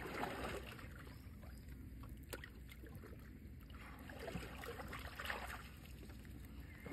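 Faint splashing and trickling of shallow seawater, swelling softly twice.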